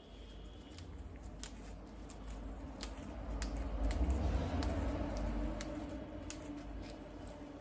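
Fresh mint leaves being snapped off their stems by hands in latex gloves: a scattering of small crisp snaps and leafy rustling. A low rumble underneath swells around the middle.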